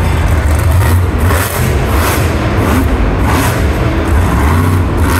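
Bigfoot monster truck's engine running loud with a heavy low rumble as the truck drives across the arena floor.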